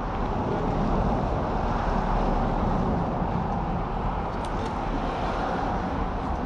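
Road traffic on a city street: a steady rush of passing cars that swells about a second in and eases slightly later on.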